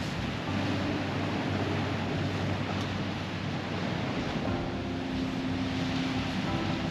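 Sea surf washing over a rocky shore, with wind buffeting the microphone. Low held tones of background music sit underneath and change about four and a half seconds in.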